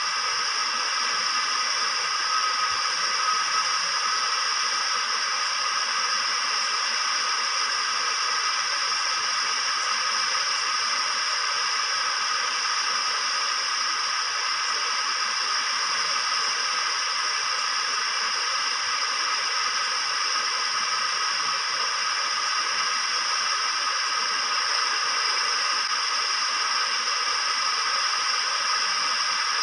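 A steady, unchanging hiss.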